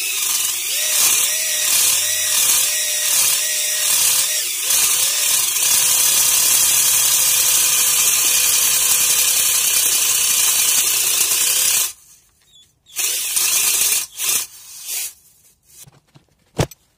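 Cordless drill spinning a tool inside an engine cylinder bore to smooth a damaged spot on the cylinder wall. Its pitch dips about once a second as it is worked up and down, then it runs steady and stops about twelve seconds in. A few short bursts and knocks follow, with one sharp click near the end.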